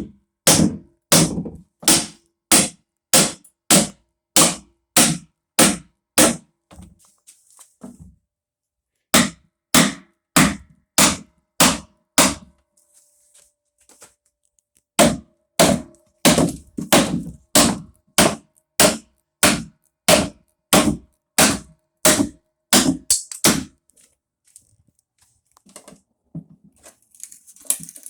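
Hammer blows driving wooden wedges into a wooden pallet to pry its boards loose. Sharp, steady strikes come a little under two a second in three runs with short pauses, then give way to a few lighter, scattered knocks near the end.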